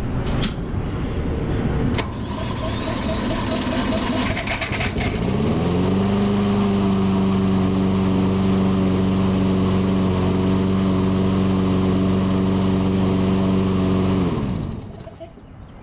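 An engine speeds up about five seconds in, runs at a steady pitch for about eight seconds, then winds down and stops near the end. It follows a few seconds of rougher mixed noise with a couple of clicks.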